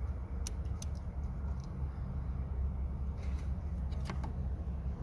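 A few light, sharp clicks from a headlight bulb being handled, pushed and turned in its socket: two close together about half a second in and two more about four seconds in. A steady low hum runs underneath.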